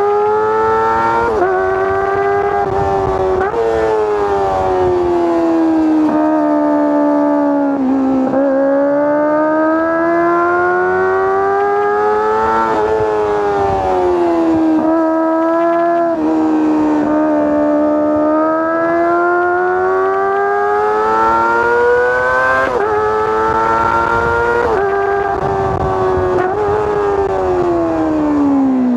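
Kawasaki ZX-25R's 249 cc inline-four engine and exhaust under hard riding, revving high. The pitch climbs again and again with sudden drops between climbs as it is accelerated through the gears, then winds down near the end as the throttle comes off.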